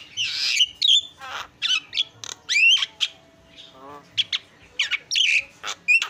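Javan myna (jalak kebo) calling loudly in a varied run of harsh squawks and sharp whistled notes that sweep up and down, with a short lull in the middle.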